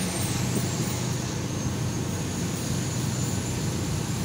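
Diesel engine of a 2003 Pierce Dash rescue-engine fire truck running steadily on the road, heard inside the cab with road and cab noise. The hum holds an even, low pitch.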